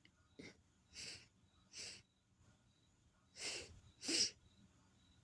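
A person breathing: five short, noisy breaths, the last two louder.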